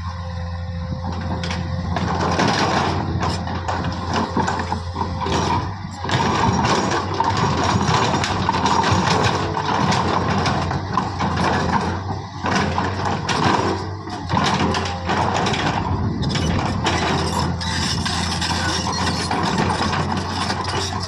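A JCB earthmoving machine working: a steady low diesel hum under continual metallic clanking and rattling, with a few short dips.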